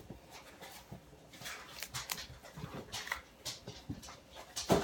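A dog panting, with short breathy puffs.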